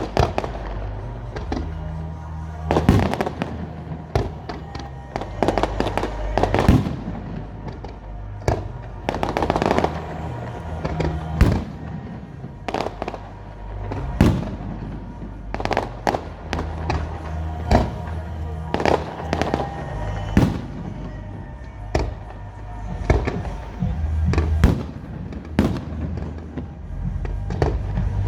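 Display fireworks bursting one after another, sharp bangs about every second or two, over music with a steady low bass line.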